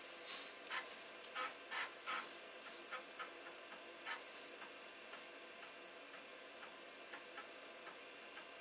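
Light clicking from an Amiga 2000 computer setup at work. About five sharper clicks come in the first two seconds, followed by fainter, irregular ticks a couple of times a second.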